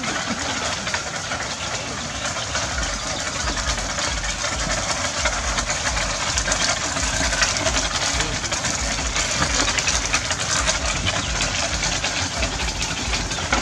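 Wooden buffalo cart rattling and rumbling as it rolls over a dirt road, heard from aboard the cart: a steady clatter of many small knocks with low thuds underneath.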